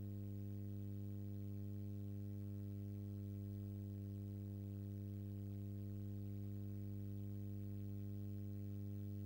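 Steady low electrical hum, a constant buzz with no other sound on an otherwise empty audio line, typical of mains hum picked up by the recording.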